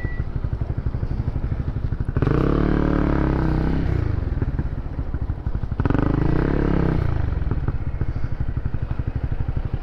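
Honda CB150R single-cylinder motorcycle engine running under way, revving up twice (about two and six seconds in), its pitch rising and then falling each time, with steadier running in between.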